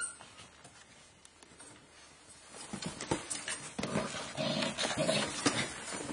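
Bearded Collie puppies scrabbling over a vinyl-covered dog bed and onto a wooden floor. A rustle of paws and quick claw taps builds up about two and a half seconds in, with two short puppy squeaks near the middle.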